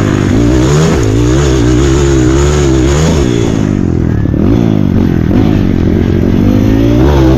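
Motocross dirt bike engine at full race effort, heard up close from on the bike. The revs climb for about three seconds, drop sharply, rise and fall in short bursts, then climb again near the end.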